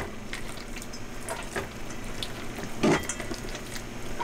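Hands squeezing and squelching wet sourdough dough in a stainless steel bowl as salted water is worked in, a run of small wet clicks and smacks with one louder one about three seconds in.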